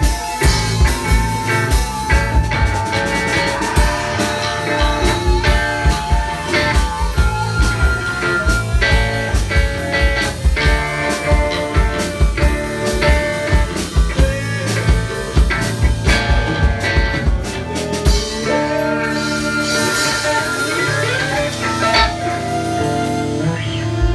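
Live rock band playing an instrumental passage on electric guitar, bass guitar and drum kit. About three-quarters of the way through, the drums stop and the guitars ring on with held and bending notes as the song winds down.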